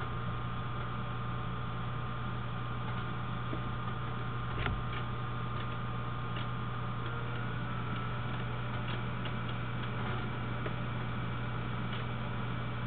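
Steady low electrical hum with a faint higher whine over background hiss, and a few scattered faint clicks, the loudest about four and a half seconds in.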